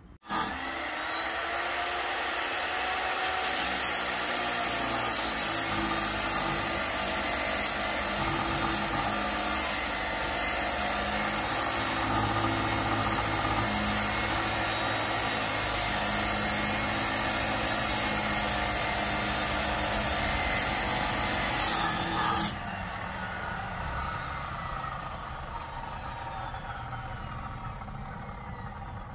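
A motor-driven machine running steadily with a loud whir for a little over twenty seconds, then shutting off suddenly and winding down with a slowly falling whine.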